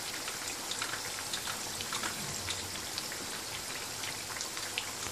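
Churros deep-frying in hot oil in a small pan: a steady sizzle with many small crackles and pops.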